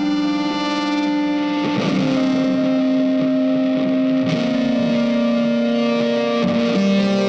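Background music: sustained, distorted electric guitar chords held for a second or two each, changing every couple of seconds.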